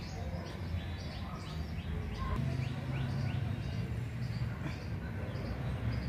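Small birds chirping in a quick run of short falling notes, about three a second, through the first half, over a steady low rumble.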